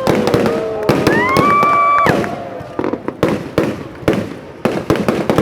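Fireworks going off in a rapid, irregular string of bangs and crackles. During the first two seconds a couple of held, pitched tones sound over the bangs.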